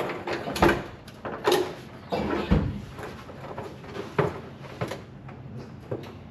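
Irregular knocks, clunks and scraping as a person gets under a pickup truck, about six distinct knocks, the louder ones in the first half.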